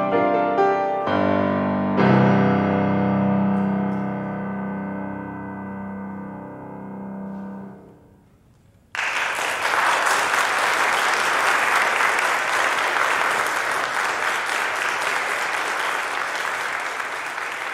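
Piano playing the closing bars of an art song, ending on a chord that fades away over several seconds. After a moment of near quiet, an audience bursts into steady applause.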